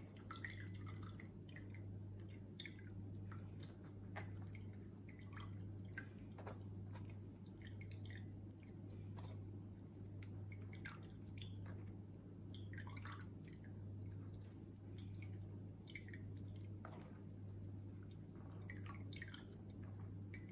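Spatula pressing and scraping blended pomegranate pulp through a fine metal mesh sieve: faint, irregular wet squishes and small scrapes, with juice dripping into the jug below. A steady low hum runs underneath.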